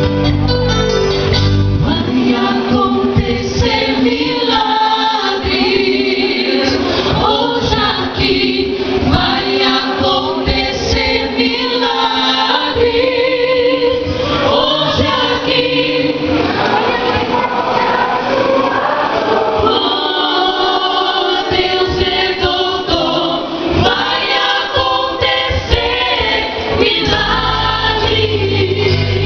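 A church choir singing a gospel worship song with instrumental accompaniment. The deep bass drops out about two seconds in and comes back near the end.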